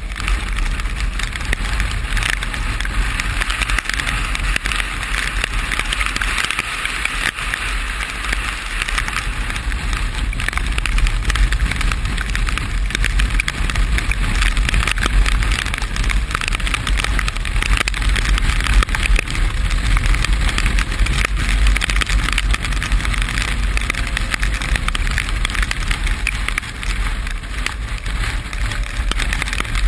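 Steady rush of rain and wind noise while riding a vehicle in the rain, over a constant deep rumble.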